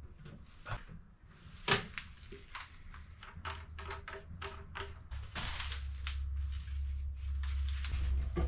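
Irregular clicks and knocks of drain pipe parts being handled and fitted, with one sharper knock about two seconds in. A low rumble comes in partway through and grows stronger.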